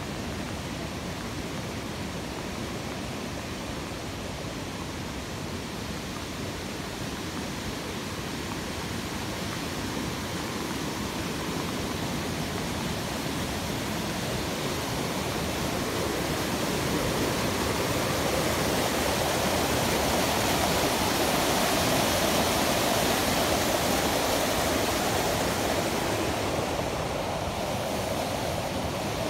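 Steady rush of running water in a mountain canyon, growing louder toward the middle and easing slightly near the end.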